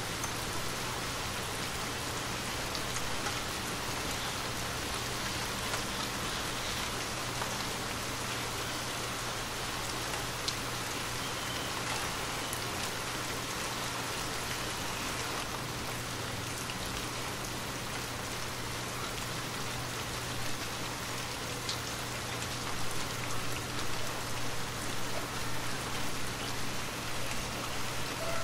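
Steady rain falling: an even hiss with scattered ticks of single drops, over a low steady hum.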